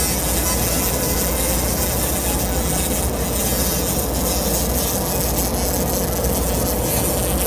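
GC Laser Systems handheld laser cleaner ablating a black coating off granite: a steady hiss from the laser pulses striking the stone over a low, even hum from the machine.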